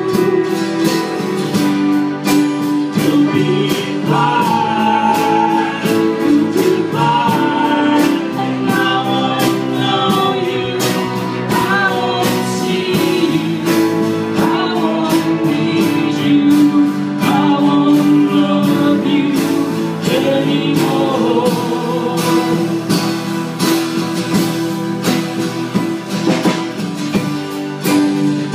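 A live folk ensemble playing: several strummed acoustic guitars and a keyboard under a group of voices singing together.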